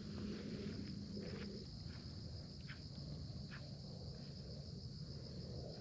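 Insects trilling steadily outdoors: a continuous high, finely pulsing buzz. A faint low hum fades out about a second and a half in, and a few soft ticks are scattered through it.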